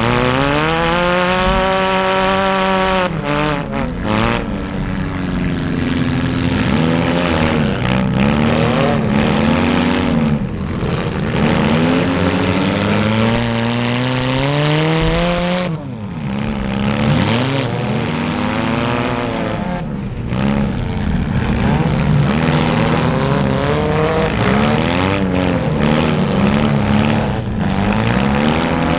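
Engines of several small demolition-derby cars running hard, their notes revving up and dropping back and overlapping one another.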